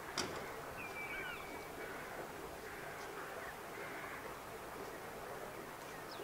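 Faint, steady outdoor shoreline ambience with a light hiss. A single sharp click comes right at the start, and a bird gives a few short, quick chirping calls about a second in.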